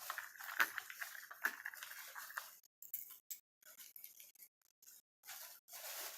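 Faint clicks and light rattling of small fishing lures being handled, over a low hiss, with the sound dropping out in patches in the second half.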